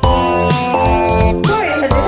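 Background music: an electronic track with held synth chords over a steady beat.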